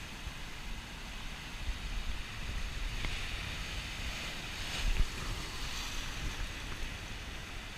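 Surf breaking and washing over rocks, with wind buffeting the microphone in low gusts; a louder rush of water and wind about five seconds in.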